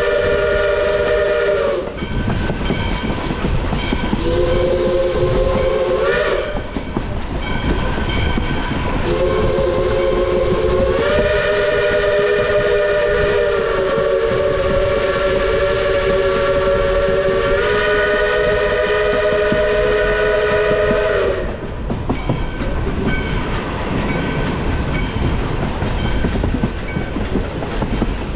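Little River Railroad #110, a 4-6-2 steam locomotive, sounding its chime whistle in three blasts. The first ends about two seconds in, a shorter one follows a few seconds later, and then comes a long blast of about twelve seconds whose chord shifts up and down in pitch as the whistle is worked. The train's rolling noise and rail clatter carry on under and after the whistle.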